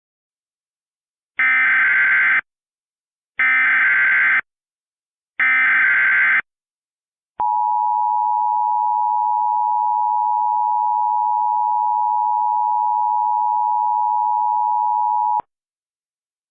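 Emergency Alert System header tones. First come three one-second bursts of SAME digital header data, about a second apart. Then the two-tone EAS attention signal (853 and 960 Hz) holds steady for about eight seconds and cuts off sharply, marking the start of an alert.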